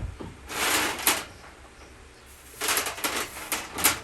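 Welded steel riser block being handled and slid into place under a raised lathe base: two spells of scraping with sharp metallic clicks, the second longer and ending in a clank near the end.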